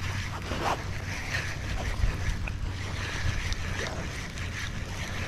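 Spinning reel cranked steadily to wind in a hooked fish, its whirr mixed with wind rumbling on the microphone.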